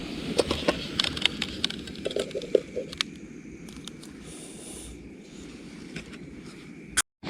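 A cooking utensil scraping and tapping in a camp pan of curry as pieces of catfish are put back in to cook, over a steady low background noise. The sound cuts out briefly near the end.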